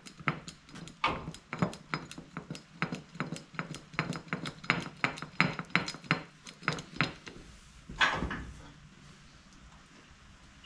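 Hammer blows on the sheet metal of a 1979 Ford F250's dented front passenger-side body panel, a quick run of sharp clanking strikes, about two to three a second, ending in a heavier ringing blow about eight seconds in, after which the hammering stops.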